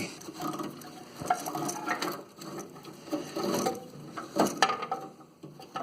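Irregular metallic scraping, clicking and rattling as the steel blade engagement cable and its end spring are worked back through the riding mower's frame by hand.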